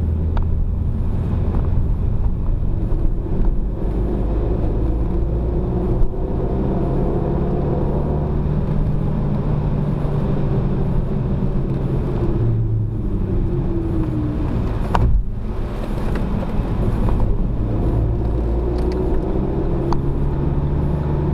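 Renault Mégane RS250's turbocharged four-cylinder engine heard from inside the cabin while driven hard on track, revs climbing and falling, with tyre and road noise underneath. There is a brief break in the engine sound with a click about fifteen seconds in.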